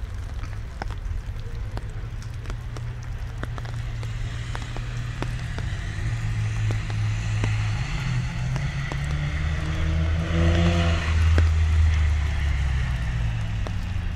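Holden VX Commodore's engine accelerating through the wet hillclimb course, its note rising and loudest about ten seconds in, with a hiss from the tyres on the wet track. Light rain ticks throughout.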